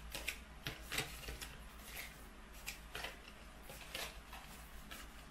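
Oracle cards being handled: a series of short, soft scrapes and rustles as the cards slide against one another.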